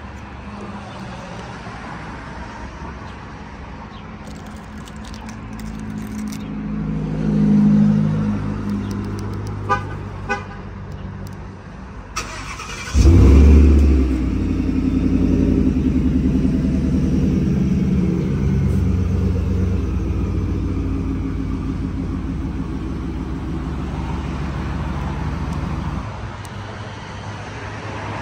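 Two short beeps, then about three seconds later the 2016 Shelby F-150's V8 starts with a loud flare. It then settles into a steady idle heard from the exhaust.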